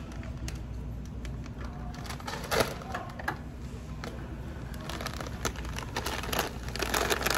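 Potato chip bag crinkling and rustling as it is taken off the shelf and handled, in short crackles with one sharp crackle about two and a half seconds in and a busier stretch near the end, over a steady low store hum.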